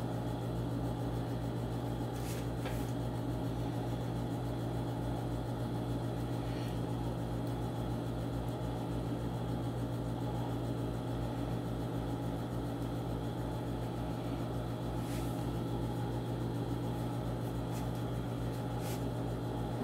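Sewing machine running and stitching: a steady motor hum with a fast, even pulsing of the needle mechanism, and a few faint clicks.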